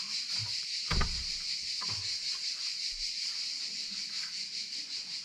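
Wooden chapel door being pushed open, with two dull knocks about one and two seconds in, over a steady high-pitched buzz.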